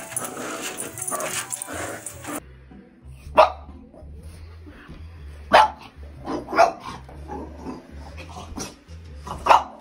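French bulldog barking in short, sharp single barks, about six of them spread over several seconds, starting about three seconds in. Before it there are a couple of seconds of other mixed noise that cuts off abruptly.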